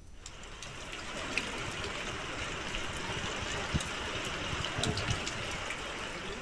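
Floodwater rushing in a steady wash, with scattered small splashes and ticks.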